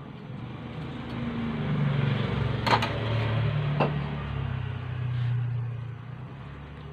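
A motor vehicle's engine swells and fades as it passes, over about five seconds. Two sharp clicks come about three and four seconds in.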